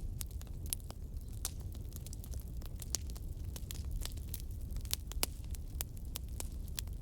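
Wood fire burning with irregular sharp crackles and pops over a steady low rumble.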